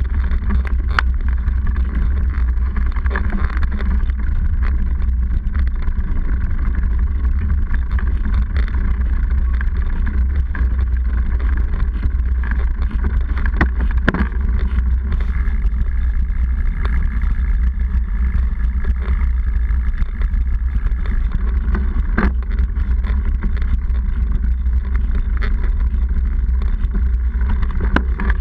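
Steady low rumble of wind and frame vibration on a seatpost-mounted camera while a mountain bike rides a rough dirt trail, with scattered knocks and rattles from bumps.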